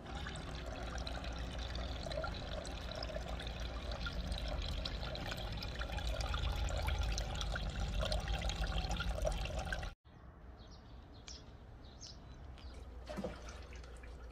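Liquid pouring steadily into a container, with a splashing, crackling rush. It cuts off abruptly about ten seconds in, and a quieter stretch of scattered drips follows, with one knock near the end.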